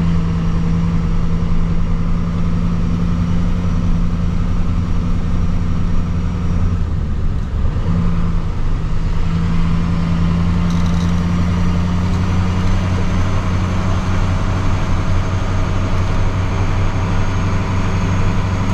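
Kodiak truck's engine running steadily while driving slowly, with a constant low hum and road noise. The engine note dips briefly about seven seconds in and then steadies again.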